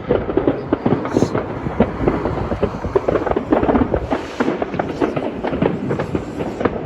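Many fireworks going off at once: a dense, irregular crackle of pops and bangs over a continuous rumble.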